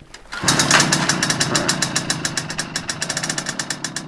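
A small single-cylinder engine catches about half a second in and runs with a steady, rapid knocking beat, roughly ten firing pulses a second.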